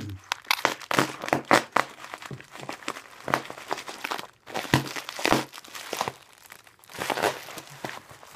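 Plastic bubble wrap and packing tape crinkling in irregular crackles as a heavily taped parcel is handled and worked open.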